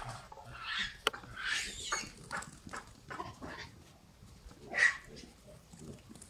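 Baboons calling: a series of short, harsh calls, the loudest about five seconds in.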